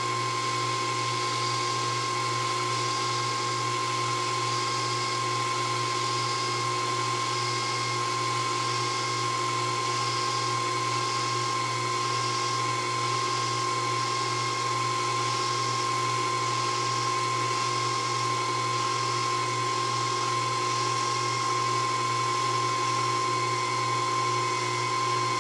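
Proxxon FD 150/E mini lathe running steadily with a high-pitched motor whine while the tool takes a turning cut along the workpiece. A faint higher hiss pulses about once a second over the whine.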